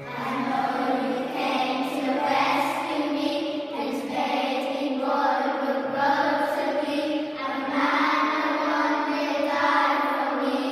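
A class of young children singing a Christmas carol together as a choir, coming in right at the start over a quieter instrumental accompaniment.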